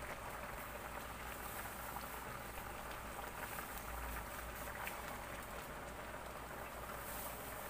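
Coconut milk boiling in a pot, a steady bubbling with many small pops.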